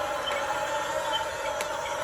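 Remote-control model excavator's electric motors running with a steady whine that wavers slightly in pitch, over a constant hiss.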